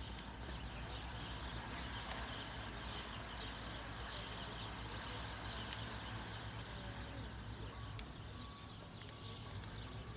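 Outdoor ambience: a steady low rumble with faint, dense bird chirping above it.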